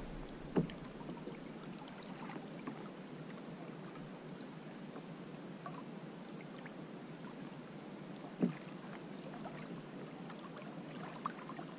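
Water lapping and sloshing against a fishing kayak's hull, with two sharp knocks on the boat, one just after the start and one about eight seconds in.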